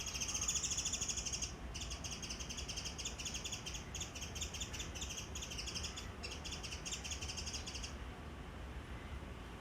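A bird calling in a rapid, steady chatter of high notes, with two brief pauses, stopping about eight seconds in.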